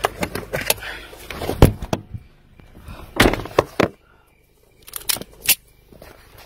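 Several sharp knocks and clunks of a phone being handled and bumped about inside a car, the loudest about one and a half and three seconds in, with a short silent gap just after four seconds.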